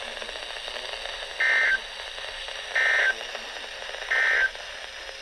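NOAA Weather Radio end-of-message signal: three short bursts of warbling SAME digital data tone, about a second and a half apart, over steady radio hiss. The signal closes the tornado warning broadcast.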